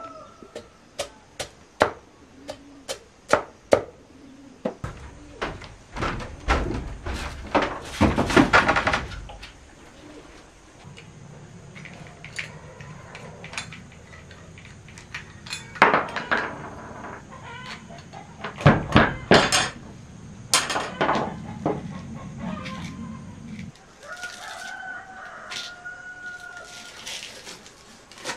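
A rooster crows, with one held call near the end. Around it are sharp knocks, about one a second in the first few seconds, and several loud bursts of clattering noise.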